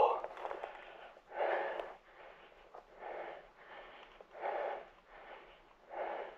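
A person breathing heavily and rhythmically close to the microphone, with stronger breaths about every second and a half and softer ones between.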